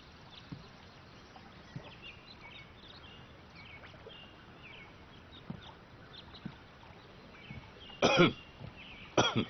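A man coughs twice near the end, two short loud coughs about a second apart, over faint bird chirps.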